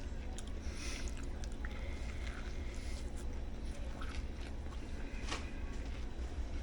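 A man chewing a bite of a ham sub sandwich, with faint soft mouth clicks and smacks over a steady low hum.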